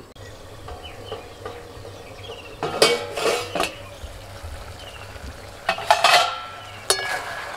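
Steel kitchenware clattering: a steel plate used as a lid is handled on a wok (kadai) and a metal spatula clinks against the pan. It comes in a few short bursts of clatter with ringing, about three seconds in, about six seconds in and once more just after.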